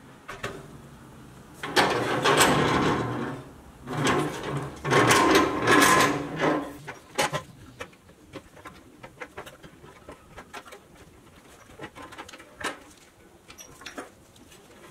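Hands handling a 1962 Tonka pressed-steel toy pickup on a wooden bench: two loud stretches of rattling noise in the first half, then small metal clicks and taps as a pick works at a rear wheel and the wheel is pulled off its axle.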